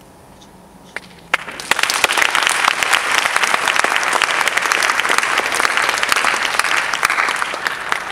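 An audience applauds as the last piano chord fades. It starts with a couple of lone claps about a second in, then quickly swells into dense, steady applause.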